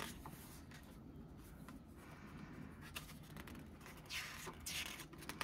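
Pages of a small glossy photo book being handled and turned by hand: a few faint paper clicks and taps, then a brief rustle of a page turning about four seconds in.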